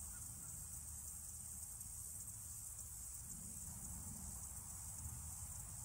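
Faint outdoor ambience: a steady, high-pitched insect drone, with a low rumble underneath.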